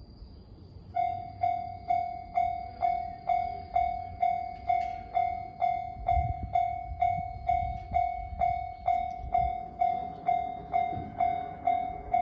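Japanese railway level-crossing warning bell starting up about a second in and ringing at a steady beat of about two strikes a second.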